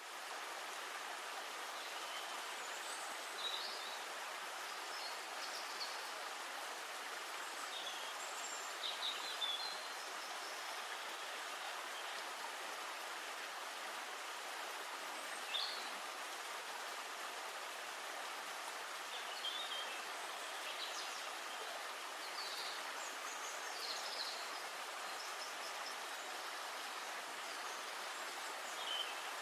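Steady hiss of outdoor forest ambience, with short, high bird chirps now and then, about a dozen scattered through it.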